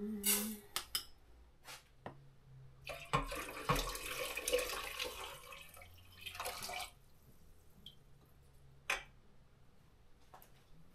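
Water running for about four seconds in kitchen preparation, starting about three seconds in and stopping near seven seconds. It is set among a few light knocks and clicks of kitchen things, with one sharp click near nine seconds.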